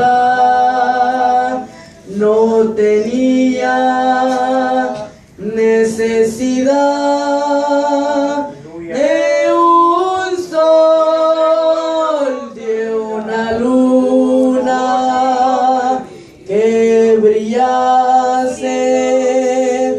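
A boy singing a Spanish worship song unaccompanied, in long held notes, with short breaks between phrases.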